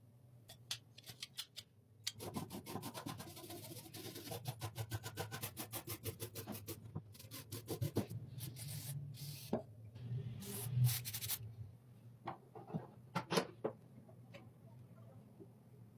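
Hand rubbing strokes on scissor blades during restoration. About two seconds in, a fast, even run of strokes starts at roughly five a second. Around the middle it gives way to slower, irregular strokes with pauses.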